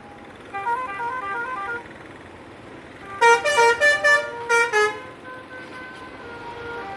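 Indonesian bus 'telolet' musical horn: a short tune of stepping notes, then a quick series of loud chord blasts a few seconds in, fading into a fainter held tone.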